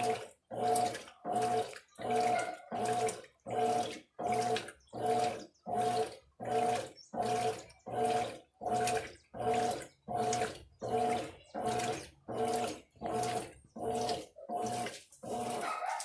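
Mueller Energy 8 kg top-loading washing machine agitating through its wash cycle, played sped up. The motor hums and the water churns in even strokes, about one and a half per second, as the agitator turns one way and then the other.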